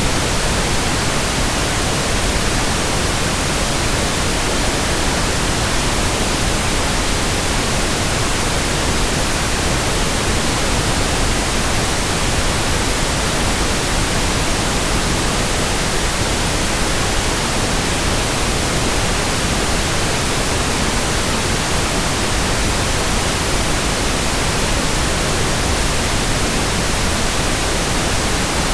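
Pink noise: a steady, even hiss with no change or break.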